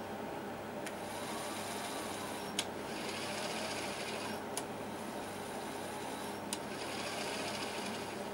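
A VHS deck's brushless DC capstan motor spinning with a steady whirr, run from hand-held wires on its board. Four sharp clicks come about two seconds apart as the wires make and break contact, and the pitch of the whirr shifts after each click.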